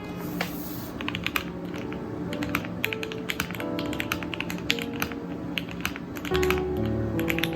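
Typing on a custom 60% mechanical keyboard with Gateron CJ switches and PBT keycaps: a quick, irregular run of keystrokes over background music.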